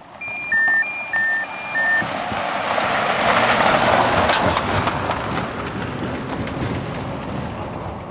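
Three quick two-note electronic beeps, high then low, in the first two seconds, then a vehicle passing on the road: its tyre and engine noise swells to a peak about four seconds in and slowly fades.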